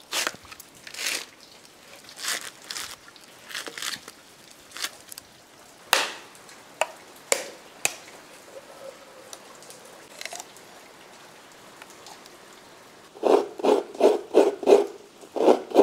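A curved knife knocking sharply against a coconut shell, a few separate strikes spaced a second or more apart, to crack it open. Near the end, rhythmic rasping strokes of coconut meat scraped on a hand coconut scraper, about four strokes a second.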